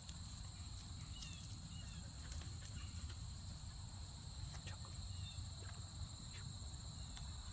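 Steady high-pitched trilling of crickets or other insects in chorus, over a low rumble, with scattered faint clicks and a few brief chirps.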